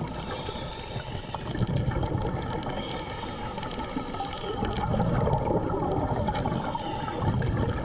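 Underwater sound of a diver: gurgling of exhaled air bubbles in irregular surges over a steady watery hiss.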